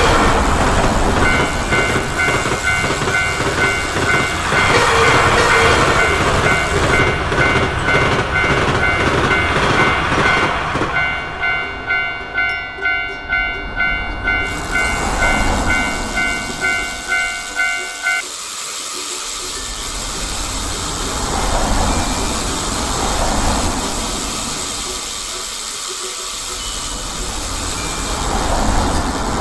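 Japanese railroad crossing warning bell ringing its alternating two-tone "kan kan" while a train rumbles and clatters past over the crossing. The bell stops about two-thirds of the way through, leaving swells of passing traffic noise.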